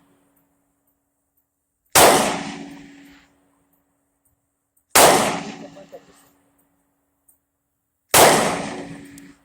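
Three gunshots about three seconds apart, each sharp crack dying away in a fading echo over a second or so.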